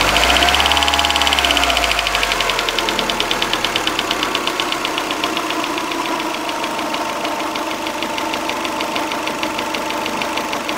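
Toyota 3S-GE twin-cam four-cylinder engine given a brief rev that falls back to idle, with a fast, even knock running through it: the knock the owner is recording.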